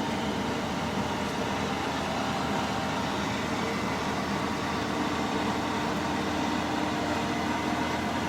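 Case IH 8250 combine harvesting wheat: its engine and threshing machinery run with a steady drone carrying several steady whining tones.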